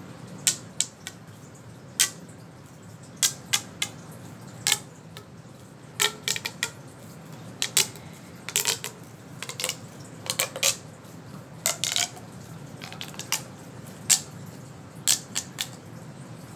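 Small plastic fidget toy being handled and snapped: irregular sharp clicks and pops, sometimes in quick pairs or triplets.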